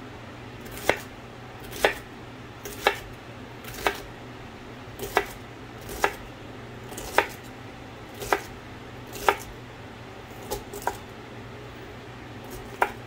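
Chef's knife chopping celery on a wooden cutting board: slow, separate knocks of the blade on the board about once a second, about a dozen in all, with two close together near the end.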